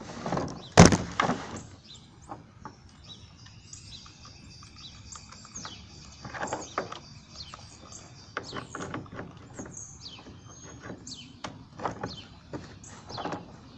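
A sharp knock about a second in, then scattered small clicks and taps from hands working screws on an RC car. Birds chirp in the background throughout.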